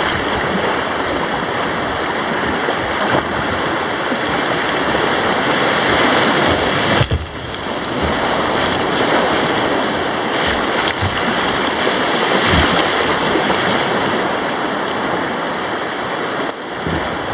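Rushing water of river rapids: a steady, loud whitewater hiss, with a few short low thumps mixed in.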